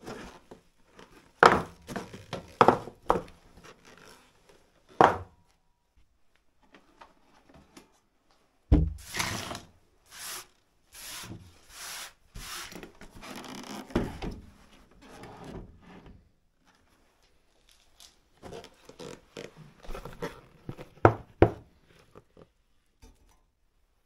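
Handling noises at a workbench: gloved hands knock and set down scrap and plastic tubs with sharp clicks and knocks. A heavy thump about nine seconds in is followed by a few seconds of rustling, then another thump, and more light clicks and knocks near the end.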